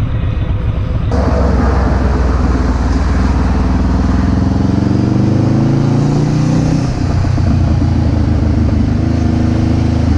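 Motorcycle engine pulling under way, rising in pitch as it accelerates, dropping at a gear change about seven seconds in and then pulling again, with wind rushing past the rider's camera.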